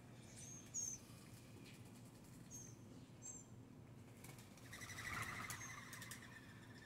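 Faint, short high bird chirps a few times in the first half. About four seconds in comes a flurry of wing flapping as doves flutter up around the birdbath and feeders.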